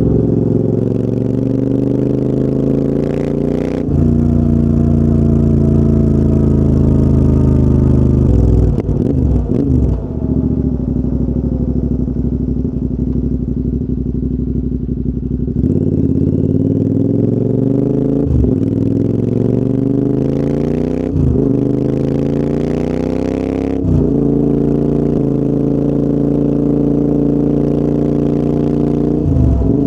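Royal Enfield Interceptor 650's parallel-twin engine through a full TEC exhaust system, ridden on the road: the engine note climbs under acceleration and drops sharply at each gear change. Around the middle it runs lower and slowly falls as the bike eases off, then it pulls up through the gears again with a shift every few seconds.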